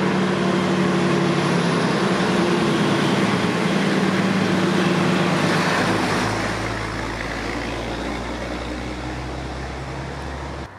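Diesel engine of a vintage bonneted Scania-Vabis truck driving past. Its engine note runs steady as it approaches, drops lower about six seconds in as it passes, then fades away.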